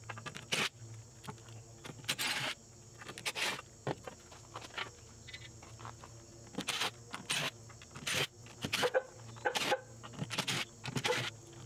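DeWalt cordless impact driver running in short, separate bursts as it backs screws out of the sawmill's metal control box, with clicks and scrapes of handling in between.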